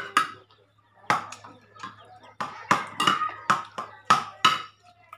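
Eating at a table: a quick, irregular run of about a dozen sharp clicks and taps, spoon on a ceramic plate and mouth noises of eating, some with a brief light ring.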